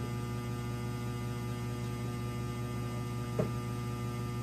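Steady electrical mains hum, with a brief click about three and a half seconds in.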